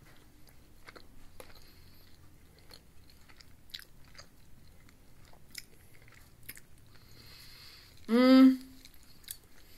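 Quiet chewing and wet mouth clicks of someone eating a soft bread roll filled with chicken, bacon and ranch. About eight seconds in comes one short hummed "mm" from the eater, the loudest sound.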